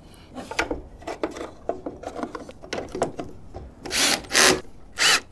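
Cordless drill/driver driving screws into the plastic parking-light housing, its clutch set very low so it ratchets and slips as each screw snugs up. Light clicks and rubbing of handling come first, then a few short drill bursts near the end.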